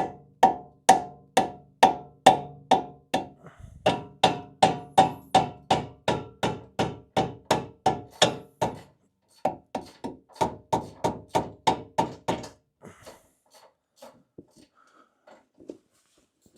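Hammer blows on the steering knuckle to pop the tie rod end's tapered stud free, about two and a half strikes a second, each ringing briefly. The hammering comes in three runs with short pauses between them, then gives way to a few lighter knocks.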